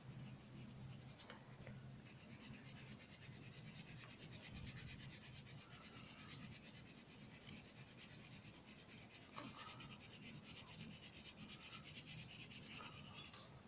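Red coloured pencil rubbing on paper in rapid, even back-and-forth shading strokes, faint, filling in a drawing with colour.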